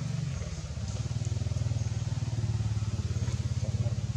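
A small engine running steadily at idle: a low, fast-pulsing hum.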